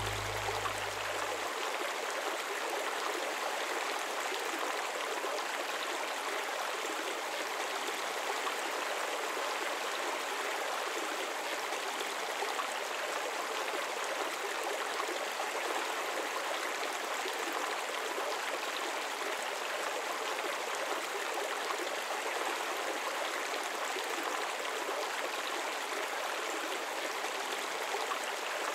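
Shallow stream water running steadily, a constant even rush with no breaks.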